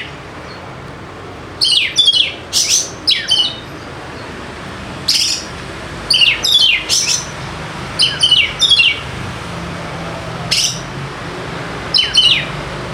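Oriental magpie-robin (kacer) calling loudly in short clusters of sharp, steeply falling whistled notes, a burst every second or two, over a steady low background hum.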